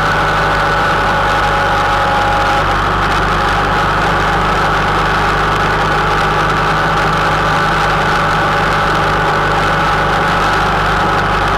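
Honda Interceptor 700's V4 engine running at a steady cruise, its pitch holding even, over a constant rush of wind and road noise.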